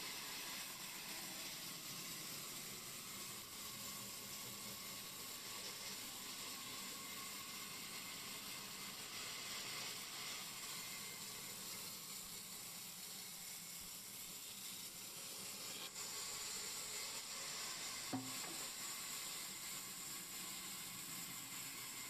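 Large band saw ripping a wooden slab lengthwise, a steady hissing rasp of the blade through the wood, with one short knock about eighteen seconds in.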